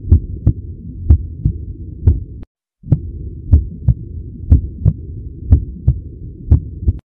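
Heartbeat heard through a stethoscope: a steady lub-dub, the first and second heart sounds (S1 and S2) coming in pairs about once a second, muffled as through a chest piece. There is a brief dropout a little after two seconds in, and the sound stops suddenly near the end.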